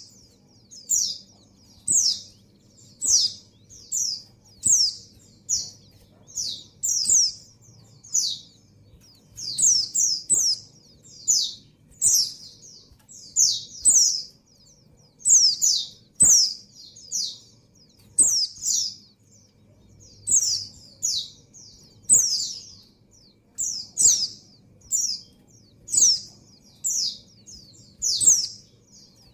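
Female white-eye (pleci) in breeding condition calling to attract a male: short, high chirps that slide downward in pitch, given singly or in quick pairs about every second.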